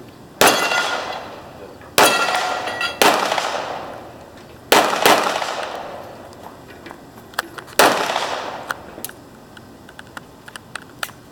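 Five handgun shots at uneven intervals, each followed by a long echoing decay, with steel targets ringing after several of them. A few faint clicks follow near the end.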